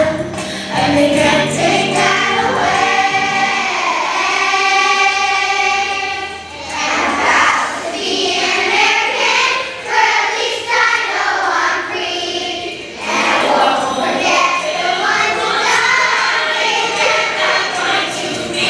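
A choir of young children singing a song together, holding one long note a few seconds in.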